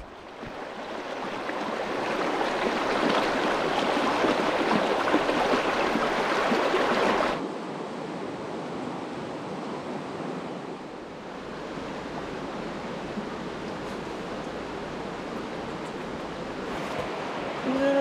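Mountain stream rushing, a steady noise that fades in, then drops suddenly to a quieter level about seven seconds in.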